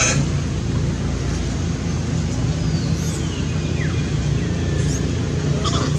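Steady low motor rumble, with a sharp click at the start and a few faint, high, gliding squeaks about halfway through.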